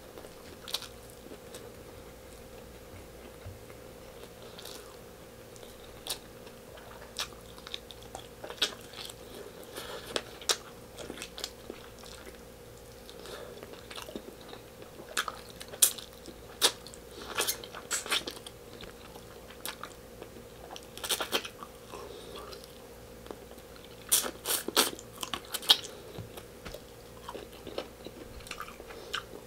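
Close-miked chewing of meat stew and rice eaten by hand: wet mouth smacks and clicks, sparse at first and coming thicker in the second half, over a steady faint hum.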